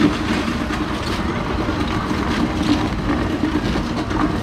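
Steady traffic noise of motor vehicles running close by, with a continuous low engine hum.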